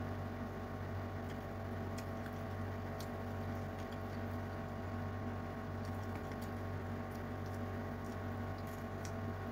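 Faint wet chewing and scattered small mouth clicks of someone eating rice and fish by hand, over a steady low hum.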